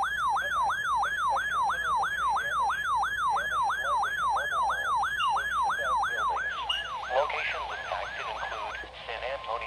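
Electronic yelp siren sweeping rapidly up and down in pitch, about three sweeps a second, then stopping near the end. As it stops, a steady high alert tone begins under faint talking.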